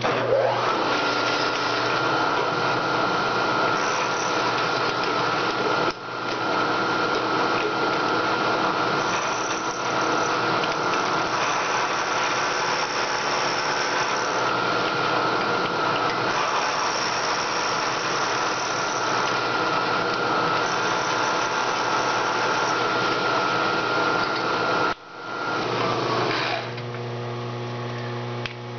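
Milling machine's end mill side-milling a rough-sawn aluminium block flat: a steady cutting noise with a constant high whine, briefly dropping out about six seconds in. The cut ends near the end, leaving the lower hum of the running machine.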